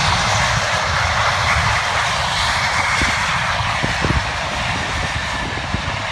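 Boeing 747's jet engines running loud during the landing roll on a wet runway: a steady, even noise that slowly fades as the jet slows and moves away. Wind buffets the microphone with irregular low rumbles.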